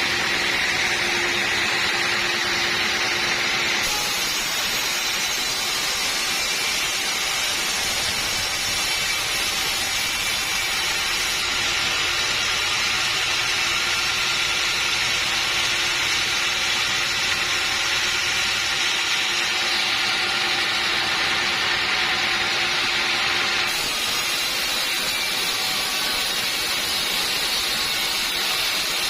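Sawmill machinery running steadily as a saw cuts timber: a continuous hissing mechanical noise that shifts abruptly in tone a few times.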